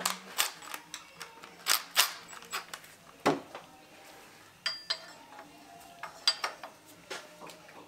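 Irregular metallic clinks and taps of hand tools and parts being handled on an engine's timing end, during adjustment of the exhaust camshaft timing with a cam locking tool. About a dozen sharp separate knocks, a few close together near the start, the middle and the end.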